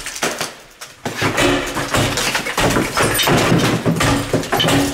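Hammer blows on a tool wedged against the door of a small steel wall safe, metal on metal with a short ringing tone after strikes. After a brief pause the blows come fast and steady from about a second in.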